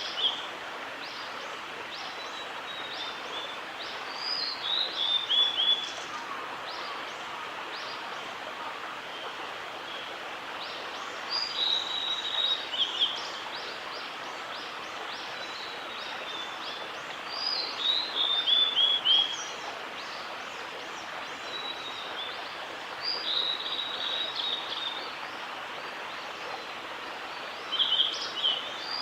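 Male blue-and-white flycatcher singing: phrases of clear whistled notes, each ending in a quick falling run, repeated about every six seconds over a steady background hiss.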